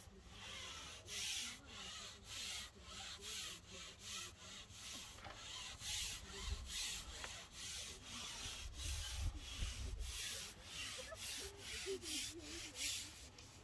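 Rhythmic rubbing or scraping, about two to three strokes a second, kept up steadily.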